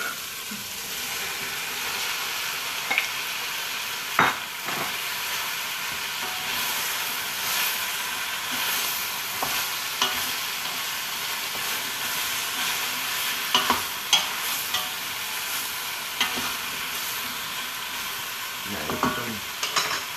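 Oil sizzling steadily in a pan as kimchi, vegetables and tofu are stir-fried, with a utensil scraping and knocking against the pan now and then.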